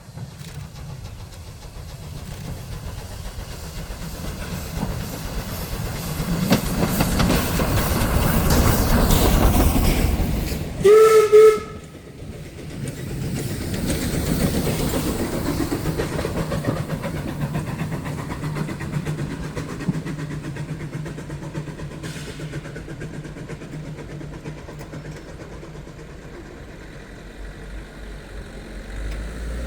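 Heritage steam train approaching, its running noise and clatter building over about ten seconds, then one short loud whistle blast about 11 s in, followed by the train's rumble going past and slowly fading.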